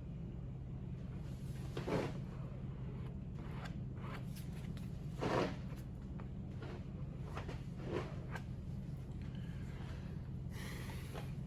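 A steady low hum with three brief handling sounds, soft knocks or rustles, about two, five and eight seconds in, and a short hiss near the end.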